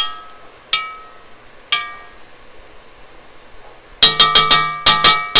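A slotted metal spatula strikes a cast-iron Dutch oven, each hit ringing like a bell. There are three single clanks about a second apart. About four seconds in comes a quick run of about eight clanks as the spatula is knocked against the pot to shake off the stuffing.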